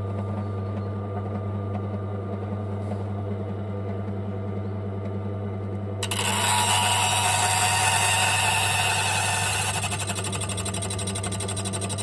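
Silca AY100 key cutting machine running with a steady motor hum. About halfway through, its rotary cutter bites into the clamped key blank with a loud, high rasping cut that lasts about six seconds, cutting one bitting notch.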